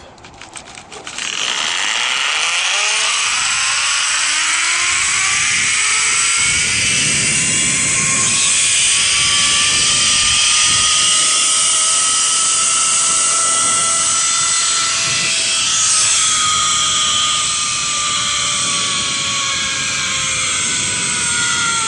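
Zip line trolley pulleys running along the steel cable. After a few clicks at the start, a whine rises in pitch as the rider picks up speed, holds steady through the middle of the ride, then falls slowly near the end as the trolley slows. Wind rushes over the microphone throughout.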